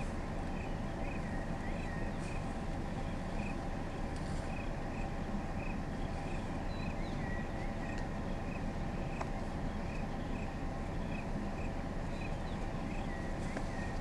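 Bush ambience: a steady low rumble under a short high note repeated evenly, about one and a half times a second, with a few brief chirps now and then.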